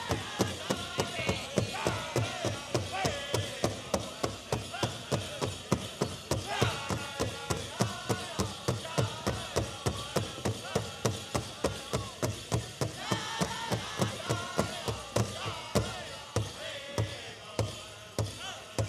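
Powwow drum group playing a chicken dance song: a large drum struck in a steady, even beat about three times a second, with singers' voices over it, getting quieter near the end.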